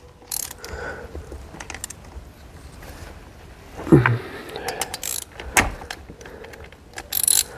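Hand tools on a chainsaw's cylinder bolts, tightening them after a base gasket reseal: scattered metal clicks and clinks. Louder knocks come about four and five and a half seconds in, and a short scrape near the end.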